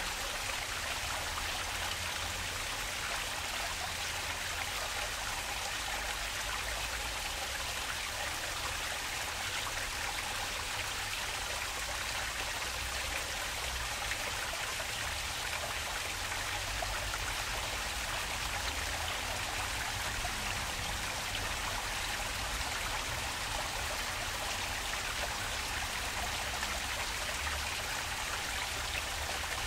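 Running water in a park stream or cascade, a steady unbroken splashing rush with a low rumble underneath.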